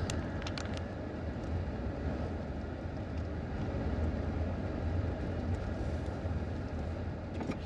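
Steady engine and road rumble heard from inside the cabin of a moving vehicle, driving slowly along town streets.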